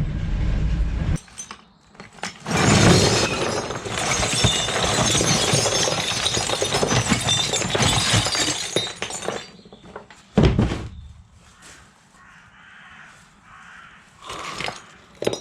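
Scrap brass and copper fittings tipped out of a box, clattering and crashing together for several seconds, then a single thump and a few lighter knocks. A low engine rumble cuts off about a second in.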